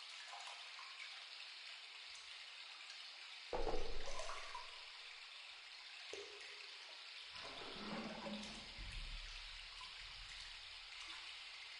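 Hot-spring water pouring and splashing into an onsen bath as a steady rush, with a louder gush about three and a half seconds in and the sound shifting suddenly a few times.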